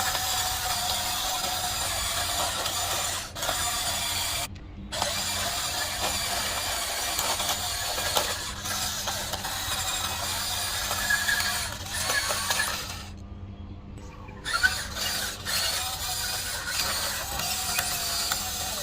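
Electric motors and plastic gearboxes of a radio-controlled toy construction vehicle whirring as it works, a high-pitched mechanical whine that stops briefly twice as the controls are let go.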